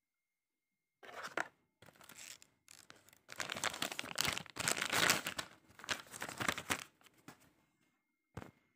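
Cardboard packaging being handled: rustling and scraping in several bursts over about six seconds, then a single short knock near the end.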